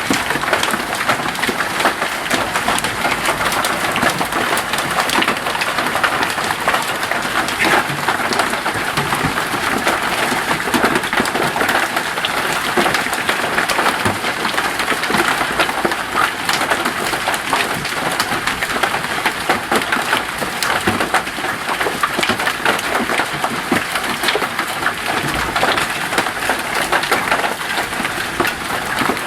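Hailstones pelting down in a heavy storm: a steady, dense clatter of countless small impacts.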